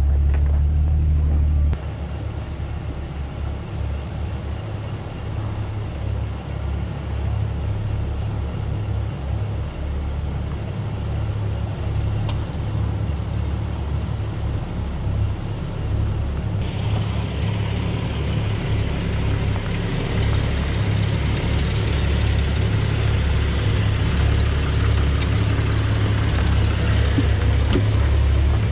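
Engine of a 4x4 SUV crawling over sandstone rock ledges at low revs, a steady low rumble. A little past halfway the sound turns abruptly louder and hissier as the vehicle comes close overhead.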